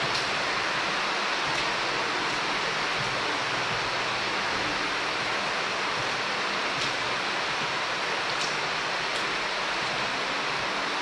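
Creek water rushing steadily through a concrete tunnel, echoing off the walls.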